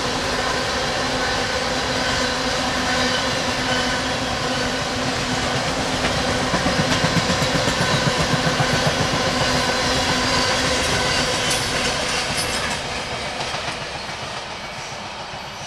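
Freight train tank cars rolling past on steel wheels, with a steady rumble and rhythmic clickety-clack over the rail joints that is strongest about halfway through. The sound fades steadily near the end as the last car passes and the train draws away.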